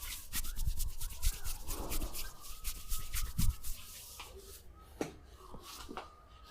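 Massage: hands rubbing quickly on a person, a rapid run of short strokes for about four seconds, then a few scattered light clicks.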